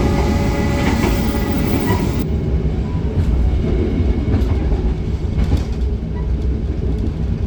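Train running: a steady low rumble of a rail car in motion, with a few faint clicks. About two seconds in, the higher hiss and whine drop away abruptly, leaving the rumble.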